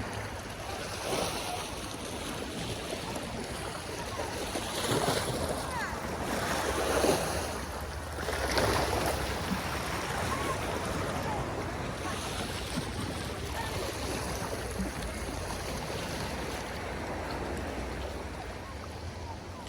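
Sea waves washing and splashing, with wind buffeting the microphone; the wash swells louder a few times near the middle.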